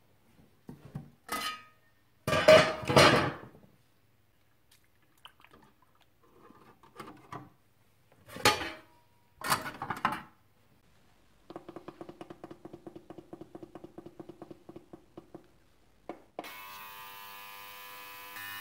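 Stainless-steel lid of a digital ultrasonic cleaner clattering as it is handled and set on the tank, loudest about two to three seconds in, with more clinks around eight to ten seconds in. A rapid run of ticks follows while the unit is set, then about sixteen seconds in the ultrasonic cleaner starts with a steady humming buzz as its 20-minute, 60 °C cleaning cycle begins.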